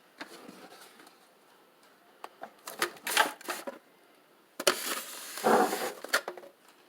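Handling noise: a string of clicks and knocks with short rustling scrapes, the loudest and longest scrape about five seconds in.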